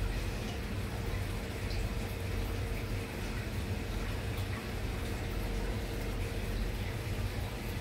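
Aquarium filtration running: a steady trickle and bubble of water over a low, constant hum from the pump.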